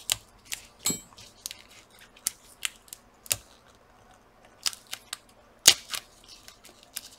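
A string of irregular, sharp clicks and taps as laptop display parts and the display cable connector are handled, with the loudest click about three quarters of the way through.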